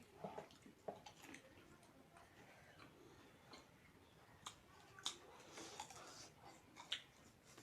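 Faint eating noises at a meal of chicken chilli and French fries: soft crunching and a few sharp clicks spread through, the loudest about five seconds in and again near the end.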